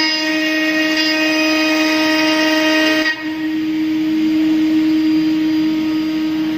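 AccTek AK6060H CNC mould-milling machine cutting aluminium with an end mill: the spindle and cutter give a steady whine with several overtones. About three seconds in the sound dips briefly and the upper overtones thin out, leaving the lower whine.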